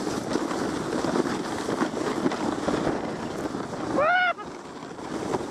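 Sled sliding fast down a packed snow trail: a steady scraping hiss of the runners over the snow, with wind on the microphone. About four seconds in comes one short, high yelp that rises and falls.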